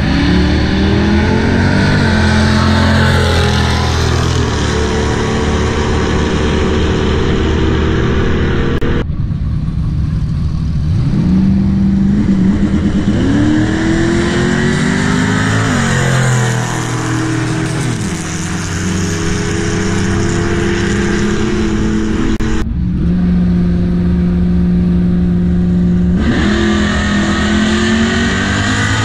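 Drag-racing car engines revving at the strip, loud, the pitch climbing and then holding steady for several seconds at a time, with abrupt changes in the sound about nine seconds in and again past twenty seconds.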